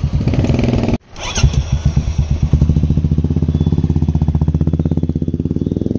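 Royal Enfield Classic 350's single-cylinder engine idling through an aftermarket Shark exhaust, a strong, steady, even thump. There is a brief break about a second in, then the same idle carries on.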